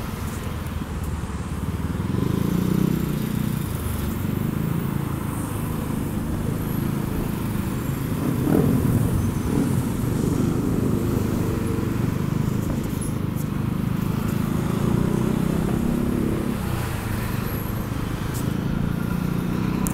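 Scooter and motorcycle engines running in heavy city motorbike traffic: a steady engine hum that rises and falls in pitch.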